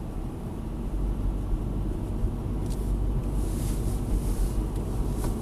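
Car driving slowly at about 35 km/h, heard from inside the cabin: a steady low rumble of engine and road noise, with a brief rise in high hiss a little past halfway.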